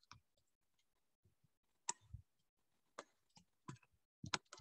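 Near silence broken by about five faint, sharp clicks, irregularly spaced: a stylus tapping on a tablet while words are handwritten.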